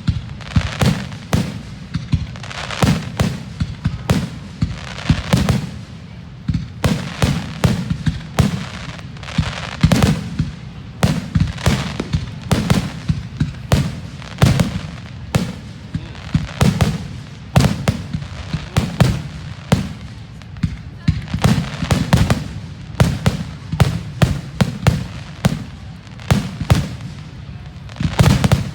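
Fireworks grand finale: aerial shells bursting in rapid, continuous succession, several deep booms a second.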